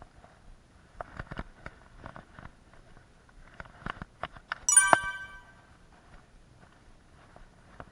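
Scattered light clicks and taps, then, a little under five seconds in, a single short, bright ringing ding that fades within about half a second.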